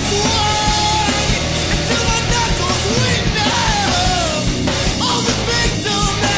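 Loud post-hardcore rock music from a full band, with drums and distorted guitars and melodic lines that bend up and down in pitch.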